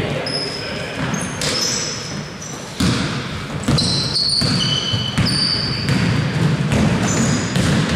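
Basketball play on an indoor court: sneakers squeaking on the floor and the ball bouncing, over the general noise of the hall, with a sudden louder knock a little under three seconds in.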